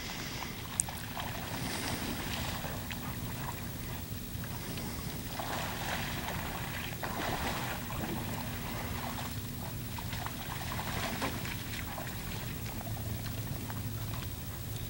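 Faint sloshing of water as a Labrador retriever wades ashore carrying a duck, over a steady low background rumble.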